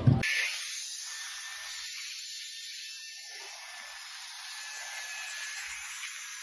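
A short thump at the very start, then the steady high hiss of a zipline trolley's pulley running along the line, with a faint thin whine that drops slightly in pitch near the end.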